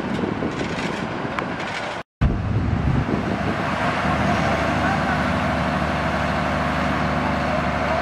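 Construction-site noise, broken by a short silent gap about two seconds in. After it, a small engine runs steadily under a broad hiss.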